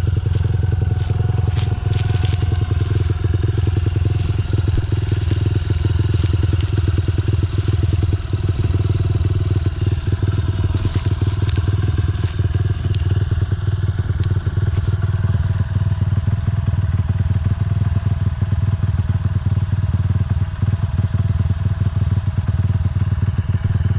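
2009 Honda CRF150F's air-cooled single-cylinder four-stroke engine idling steadily. Dry corn stalks crunch underfoot, mostly in the first several seconds.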